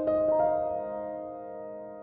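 Background piano music: held notes ringing and slowly fading, with one new note about half a second in.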